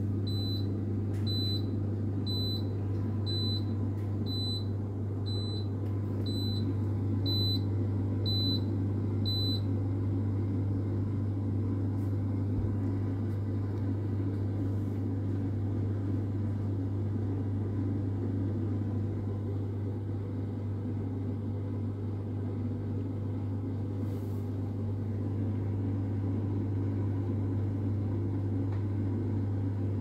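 Midea dishwasher giving short high beeps about once a second, its water-leak fault alarm; the beeps stop about ten seconds in, leaving a steady low hum from the machine.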